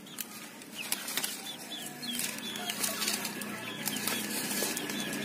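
Leaves and stems rustling and snapping as betel leaves are picked by hand, with short, high, falling bird peeps repeating throughout.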